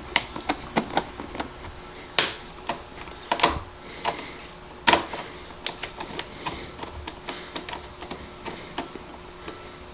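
Socket wrench with a T25 Torx socket clicking in short, uneven runs as the captive Torx bolts of an air filter box cover are backed out.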